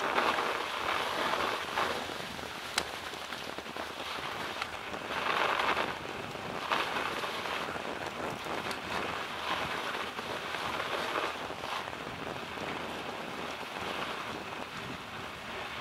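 Mountain-bike tyres crunching over a snow-covered track, a steady rain-like hiss that swells and fades every few seconds, with a few sharp clicks.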